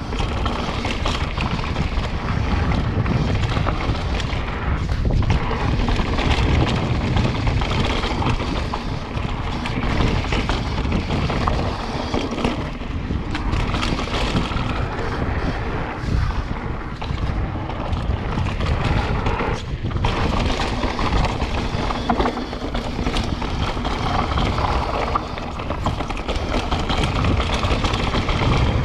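Wind buffeting the camera's microphone over the rattle and knocks of a mountain bike rolling fast down a dirt trail, tyres and frame jolting over bumps.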